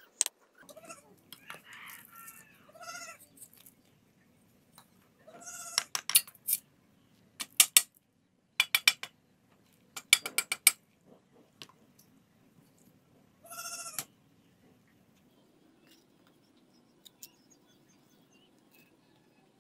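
Sharp taps and knocks of a hammer on bricks as they are set in place, coming in several quick clusters. A farm animal calls a few times in the background.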